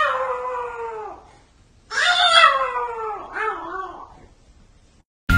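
A cat yowling: two long drawn-out meows, each falling in pitch, the second longer with a wavering tail.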